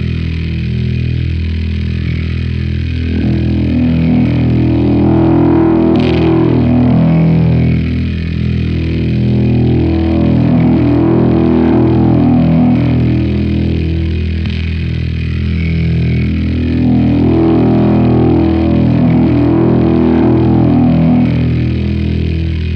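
Soundtrack music: a dense, low, sustained drone that swells and fades about every seven seconds.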